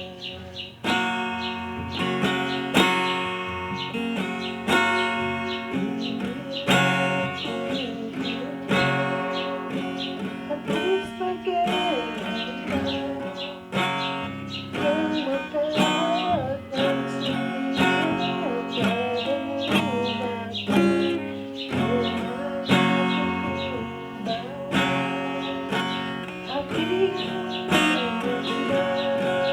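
Acoustic guitar strummed in a steady rhythm, playing an instrumental interlude of a slow song, with a wavering melody line above the chords in places.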